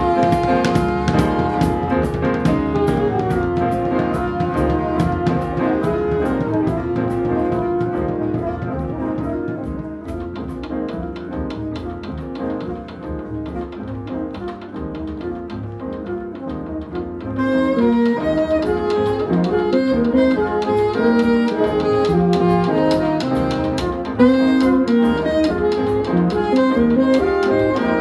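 Live small jazz band playing: flute with alto and tenor saxophones over piano, double bass and a drum kit. The band thins out and gets quieter about a third of the way in, then comes back fuller and louder a little past halfway.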